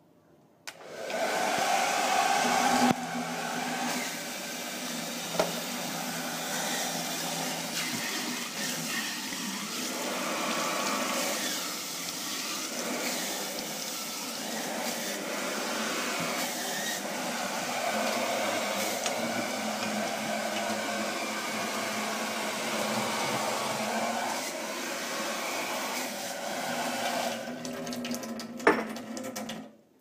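Parlux 2100-watt hair dryer running steadily while reverse-osmosis-filtered water pours over it from the sink tap, the fan's whir mixed with splashing water. It starts suddenly about a second in, and there is a sharp click shortly before it cuts off near the end.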